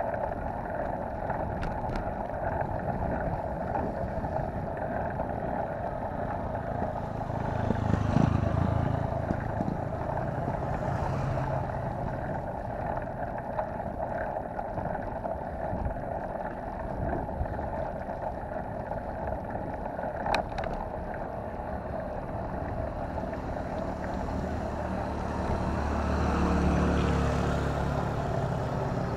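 Steady rush of riding on a wet road, tyres on water and wind over the camera microphone. Near the end a motorcycle-sidecar tricycle's engine grows louder as it comes past.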